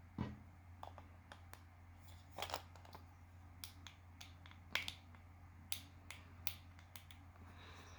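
Scattered light clicks and small rustles of figure packaging being handled, over a steady low hum.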